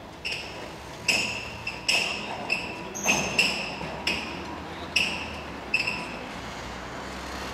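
Steel roller shutter being lowered over a shop entrance, its slats clanking about once or twice a second, each clank ringing briefly with a metallic ping.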